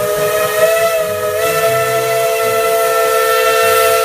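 Steam locomotive's chime whistle blowing one long, steady blast, several tones sounding together as a chord, over a hiss of steam.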